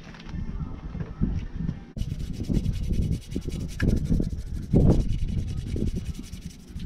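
A small wheel brush scrubbing the inside barrel of a grimy alloy wheel in repeated strokes, agitating wheel cleaner into the dirt. The scrubbing starts about two seconds in.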